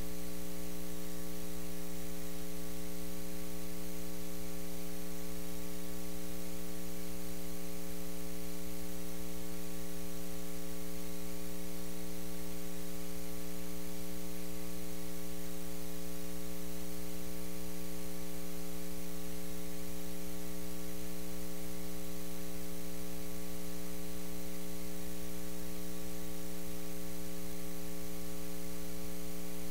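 Steady electrical mains hum with a buzzy edge and a faint hiss, unchanging and with no voices or room sound coming through.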